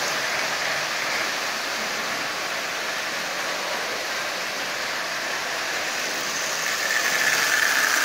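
Marx 666 toy steam locomotive running on three-rail tinplate track: a steady whirring rumble of its electric motor and wheels. It gets louder near the end as the engine comes close.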